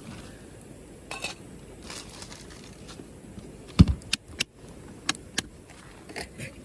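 Wood campfire crackling, with sharp pops at irregular intervals over a low steady rush, and one louder thud about four seconds in.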